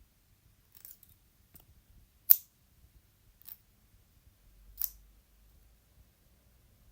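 Five short, crisp cutting snips spread over about four seconds, the third much the loudest, from salad ingredients being cut.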